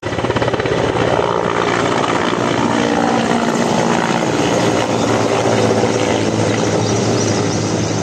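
Firefighting helicopter flying overhead, loud and steady, its rotor beating rapidly over the engine noise.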